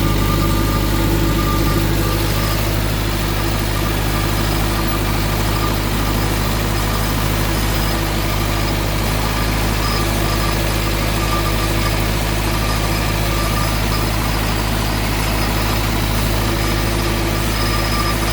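Tractor engine running steadily while pulling a cultivator through a field.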